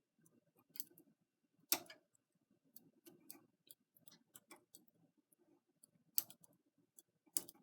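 Light, irregular clicking of a latch tool and metal knitting-machine needles being worked by hand during a latch tool cast-on, with a few sharper clicks about two seconds in and near the end.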